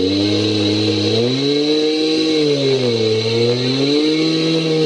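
Two-stroke chainsaw running at full throttle while ripping a log in a chainsaw mill, its engine pitch sagging and recovering twice as the cut loads it.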